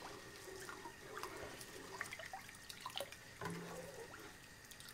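Faint scattered drips and small ticks from a pot of spiced brine starting to heat on a gas stove.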